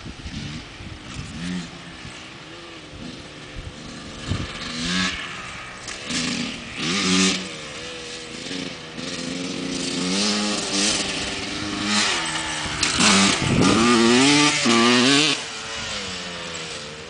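Honda CR125 two-stroke dirt bike engine revving up and dropping back again and again as it is ridden round the track. It grows louder as the bike comes nearer, is loudest about thirteen to fifteen seconds in, then fades.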